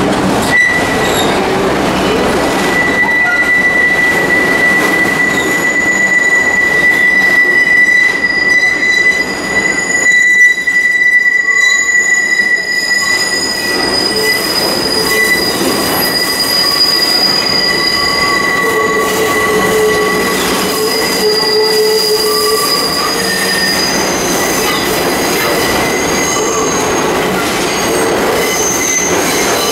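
New York City Subway 1 train's steel wheels squealing on the sharp curve of the old South Ferry loop as the cars pass slowly through the station. Several steady high-pitched squeal tones come and go over the rumble of the cars.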